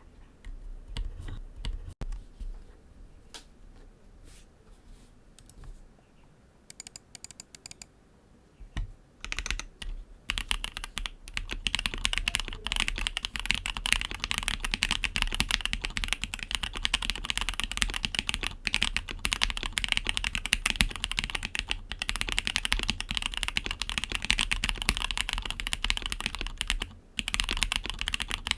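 Mechanical keyboard being typed on: a top-mount Matrix Vita with an aluminium plate, TTC Wild 42g switches and GMK Metaverse 2 keycaps. A few scattered keystrokes come first, then from about ten seconds in a fast, continuous run of typing, with a short break near the end.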